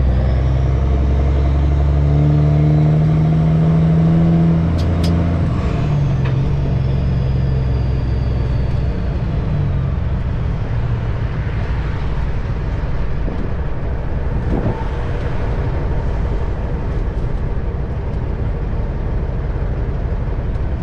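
Semi truck's diesel engine running under way with the windows down, its low drone mixed with road and wind noise. About five seconds in the engine note changes with a couple of clicks, and a faint high whistle then slides down over several seconds.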